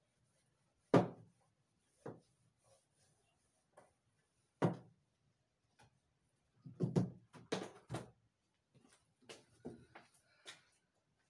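Scattered sharp knocks and clatters of objects being handled at a whiteboard and set down on a wooden table. The loudest comes about a second in, and a quick cluster of them about seven seconds in.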